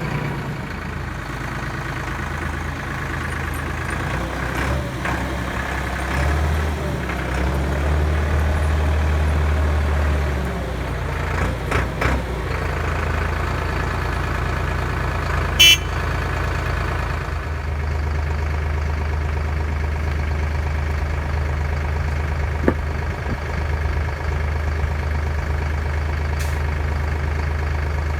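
Tractor engine running steadily, louder for a few seconds early on, then settling back. A short sharp click about halfway through.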